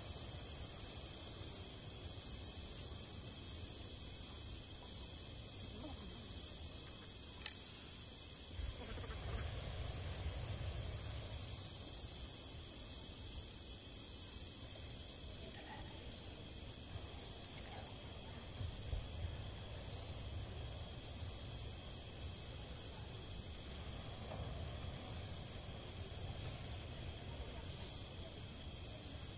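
Steady high-pitched insect chorus of crickets trilling without a break, with a faint low rumble underneath.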